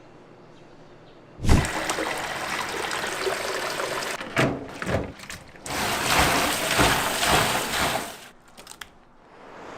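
Water pouring or running hard, starting suddenly, breaking off briefly, then running again for a few seconds before stopping, with a few light clatters at the end.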